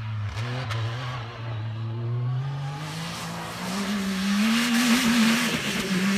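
Yamaha YXZ1000R side-by-side's three-cylinder engine running at a distance, steady at first, then revving up in pitch as it accelerates about halfway through, loudest near the end before easing off.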